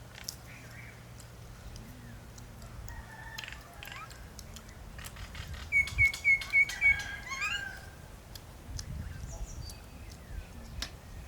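A bird calling: a quick run of five short, sharp, identical high chirps at about four a second, followed by a sliding call and a few fainter chirps. Faint scattered ticks can be heard in the background.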